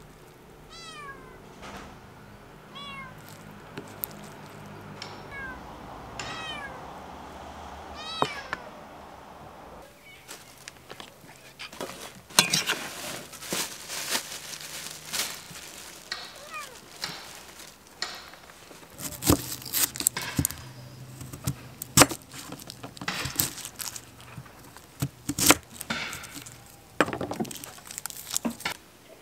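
A cat meowing about five times over the first ten seconds. After that come sharp clicks and crunches of food being handled: a fork in salad on a plate, and an onion pulled apart by hand near the end.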